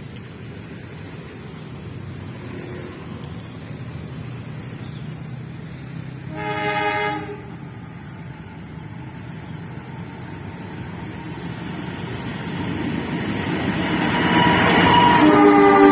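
KAI diesel locomotive running light and approaching: one short horn blast about six seconds in, then its engine and wheel noise grows steadily louder, and a long horn blast begins near the end as it draws close.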